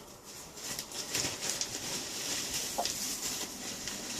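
Domestic hens clucking now and then over a steady rustling, with one clear call a little under three seconds in.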